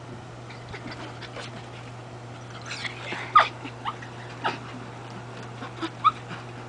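Small dog giving a handful of short, high whimpers and yips, starting about three seconds in, with a steady low hum underneath.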